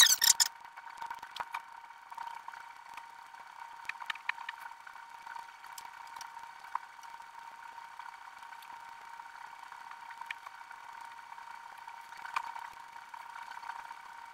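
Sped-up, high-pitched workroom sound: a steady hum with scattered light clicks and taps as fabric is handled at an ironing board, and a short louder clatter right at the start.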